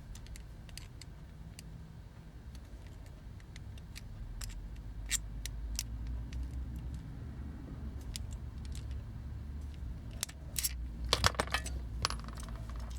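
Small sharp clicks and clinks of a hand tool and hard plastic toy parts being handled while a pinned part is worked loose, with a cluster of clicks about eleven seconds in. A low steady hum sits underneath.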